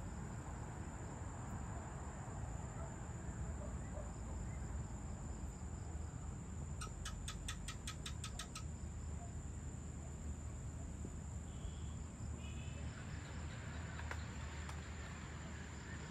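Steady, high-pitched insect drone, typical of crickets at dusk, over a low background rumble. About seven seconds in comes a quick run of about ten sharp, evenly spaced chirps, and a few short faint notes follow a few seconds later.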